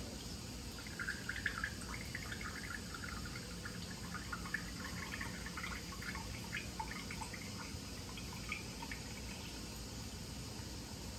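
Juice trickling in a thin stream from a bottle's pour spout into a small shot glass, with many small gurgles and splashes, starting about a second in and thinning out near the end.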